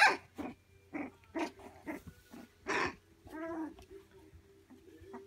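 Three-week-old Labradoodle puppies playing, with a loud squeal at the start, then a string of short yips and little barks, and a longer whining call about three and a half seconds in.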